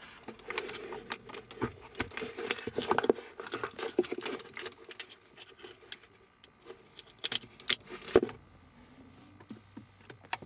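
Scattered clicks, taps and rustling from hands handling an aux cable and plugs inside a car cabin, as a plug-in audio adapter is connected again. No music is playing.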